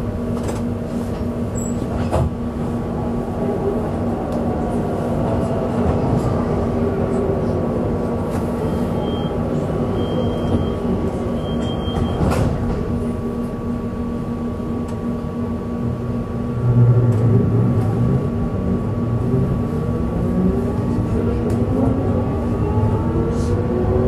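Duewag B80D light rail car running, heard from on board: a steady electrical hum under a motor whine that glides in pitch, rising over the last few seconds as the car picks up speed, with occasional knocks from the track. Three short high beeps come about halfway, and a low rumble swells about two-thirds in.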